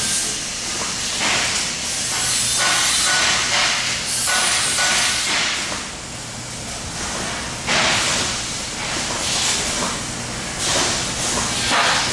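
Duct-manufacturing shop noise: a loud hiss that swells and fades in irregular bursts, one starting suddenly about eight seconds in.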